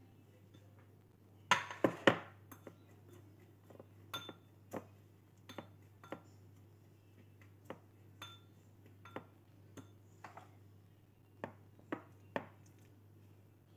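A spoon clinking and knocking against a small ceramic bowl while mixing brown sugar: a quick run of loud knocks about two seconds in, then scattered single clinks every second or so.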